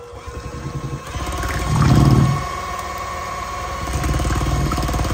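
Electric hand mixer running, its beaters whirring through a thick cream-cheese and egg flan batter with a steady motor whine. It grows louder about a second in, with a brief louder low rumble around two seconds.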